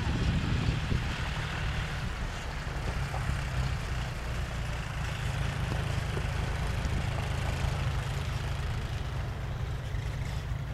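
Steady low rumble of wind buffeting the camera microphone, over a constant outdoor hiss.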